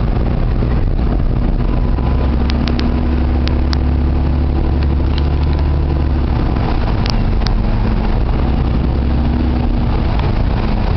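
Steady engine and road drone heard from inside the cabin of the armored Tornado Intercept Vehicle as it drives, with a few light clicks.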